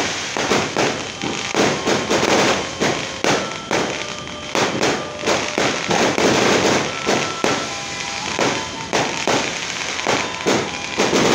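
Many fireworks going off at once: a dense, unbroken run of bangs and crackles, several a second.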